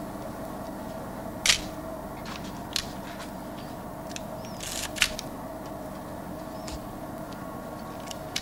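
Shutter of a Nikon FE2 35 mm SLR camera clicking: a few sharp, separate clicks a second or more apart, two of them louder than the rest, over a steady faint hum.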